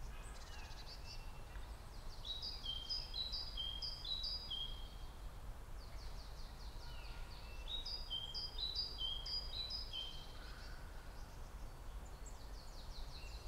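A songbird singing the same song three times, each a run of quick high descending notes followed by a jumble of short notes, about a few seconds apart. Under it runs a low, steady background rumble.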